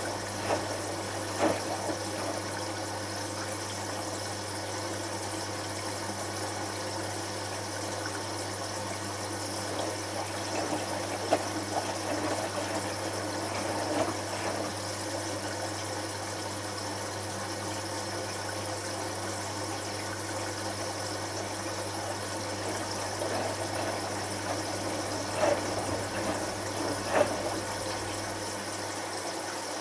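Hotpoint HF8B593 washing machine running during its rinse-and-spin stage: a steady hum with water running through it, and a few brief knocks.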